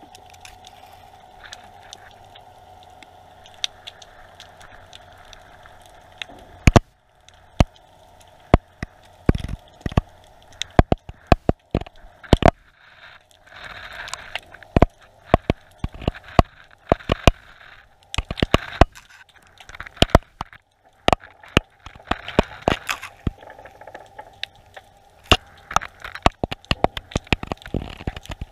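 Irregular sharp clicks and crackles picked up underwater by a GoPro in its waterproof housing, with a faint steady hum for the first seven seconds or so.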